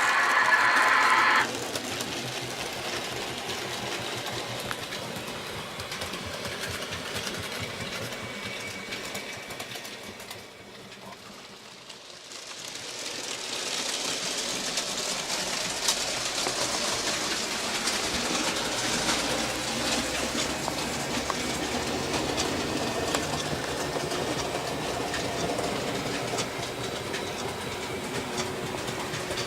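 N scale model train running around the layout track: the small electric motor whirring and the wheels clicking over rail joints. It fades to its quietest about ten to twelve seconds in and then comes back louder. A louder, pitched sound cuts off about a second and a half in.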